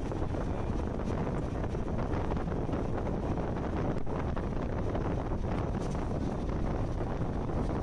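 Steady rush of wind buffeting the microphone from a moving passenger train, over the train's low running rumble.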